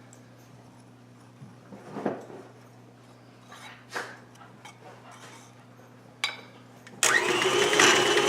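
Electric mixer creaming butter and sugar, starting abruptly about seven seconds in and running loudly and steadily for about a second and a half. Before it there are a few soft knocks of dry ingredients being mixed by hand.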